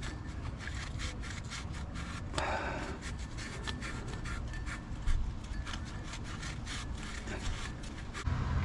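A shop towel rubbing and scrubbing the metal mounting face for the serpentine belt tensioner clean, in many short, irregular wiping strokes.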